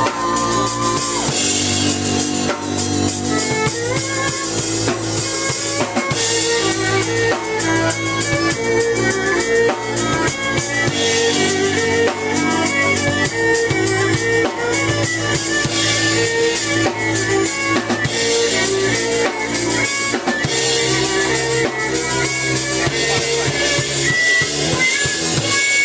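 Live band music from a violin, drum kit and keyboard trio, with a driving drum-kit beat (kick, snare and rimshots) under held keyboard and violin notes.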